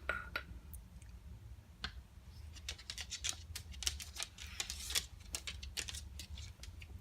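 Irregular clicks and scratching of hands handling and opening a tarantula's shipping container and its packaging, busiest in the second half.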